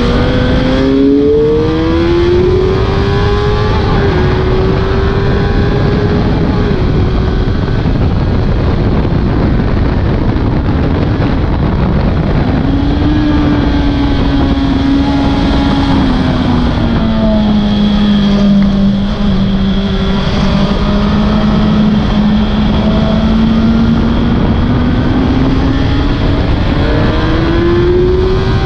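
Suzuki GSX-R 1000 K6 four-cylinder sport bike engine at speed on track, its note climbing under acceleration, dropping away in the middle and climbing again near the end, over a constant loud rush of wind noise.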